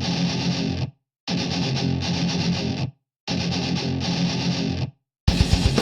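Intro music: a distorted electric guitar holds a chord that cuts off sharply, three times with short silences between, and drums come in near the end.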